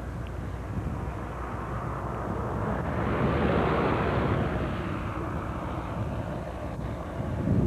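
A vehicle passing: a rushing engine noise that swells about three seconds in and fades away again, over a steady low outdoor rumble.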